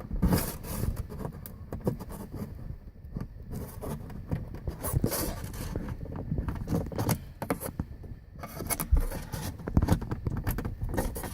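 A plastic part being forced out by hand: irregular scraping and rubbing with many short clicks and knocks as it is worked loose, a sound like it might crack although it doesn't.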